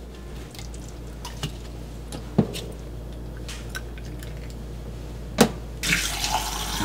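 A few light knocks and wet handling sounds at a stainless-steel sink as a cleaned squid is handled, then a kitchen tap turns on near the end and water runs into the sink.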